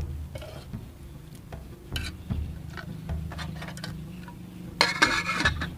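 Pieces of bird meat being put into a wok of spiced marinade water: scattered small clinks, knocks and wet patters against the pan, with a louder clatter about five seconds in.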